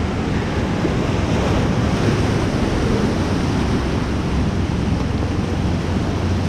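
Steady rush of fast river water, with wind buffeting the microphone.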